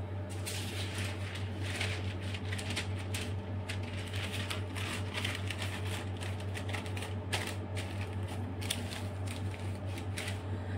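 Metal spatula scraping and smoothing whipped-cream frosting on a cake, with many short scrapes and light taps as the excess cream is wiped off on the rim of a tub. A steady low hum runs underneath.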